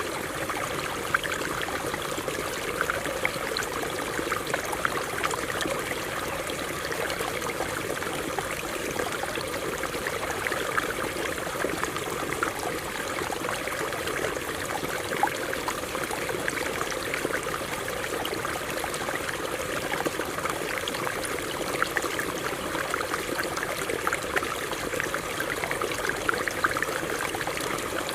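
A shallow stream running over rocks: a steady rushing, with many small splashes and drips close by.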